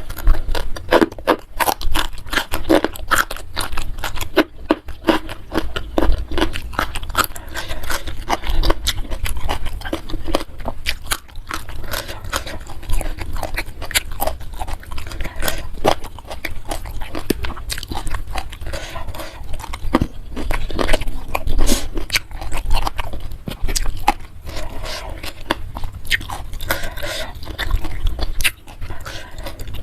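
Close-miked eating: steady crunching and wet chewing, dense irregular crackles and smacks without a break.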